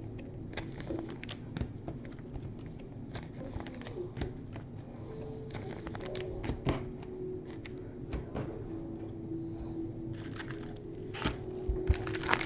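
Trading cards and packs being handled: scattered light clicks and taps of cards throughout, then about a second before the end a wrapper starts crinkling loudly as the next pack is opened.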